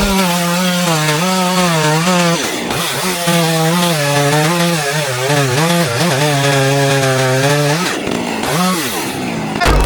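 Chainsaw running at high revs while cutting through wood. Its pitch wavers under load and dips and climbs again twice, once about two and a half seconds in and once near the end.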